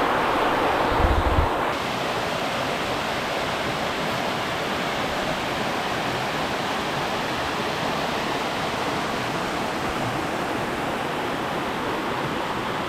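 Waterfall's rushing water, a steady even rush of noise, with a brief low thump about a second in.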